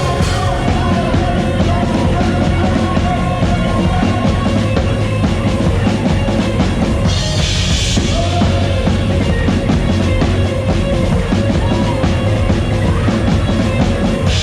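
Loud live rock-style worship band music with the drum kit to the fore, and a cymbal wash swelling about halfway through.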